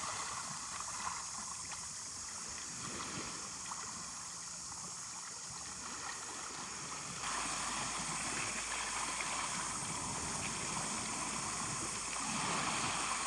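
Steady wash of shallow seawater gently lapping and gurgling, fuller from about seven seconds in.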